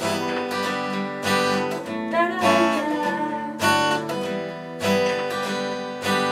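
Acoustic guitar strumming chords in an instrumental break of a song, with a strong strum roughly every second or so.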